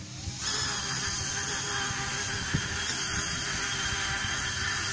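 Furibee F36 micro quadcopter's tiny brushed motors and propellers spinning up abruptly about half a second in, then running with a steady, high whine like a dental drill. There is one short tap about two and a half seconds in.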